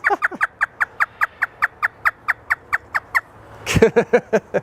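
African grey parrot doing a mimicked hysterical laugh: a rapid run of short, even notes, each falling in pitch, about five a second for some three seconds, then a few more pitched calls near the end.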